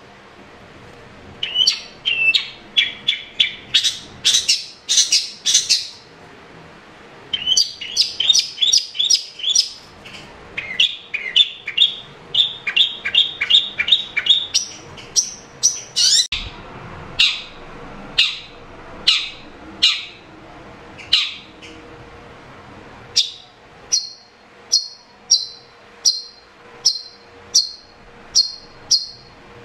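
Long-tailed shrike singing: rapid runs of sharp, high chirping notes in bursts, broken by short pauses. Near the end it slows to a string of single high notes, a little more than one a second.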